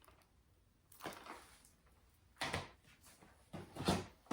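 Plastic DVD cases being handled and set down: a few short scuffs and knocks, about one every second or so.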